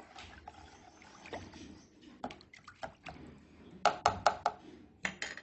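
Plastic spoon stirring neem oil into water in a plastic tub: soft sloshing and splashing, with a few sharp clicks about four seconds in and again near the end.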